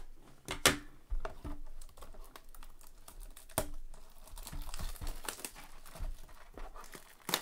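Cardboard blaster box of trading cards being handled and opened: a run of small clicks, taps and cardboard scrapes, with sharper knocks about a second in, midway and near the end.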